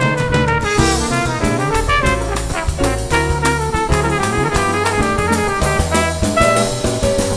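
Jazz band recording: a trumpet plays a melodic line over drum kit and bass.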